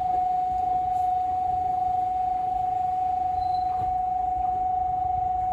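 Station's electronic train-approach warning tone: one steady high beep held without a break while a train nears the platform.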